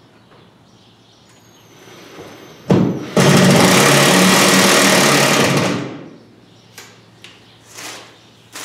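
Power drill driving a screw to fasten a paper towel dispenser to a wall: a brief blip of the trigger, then about two and a half seconds of steady running before it winds down. A few light knocks follow.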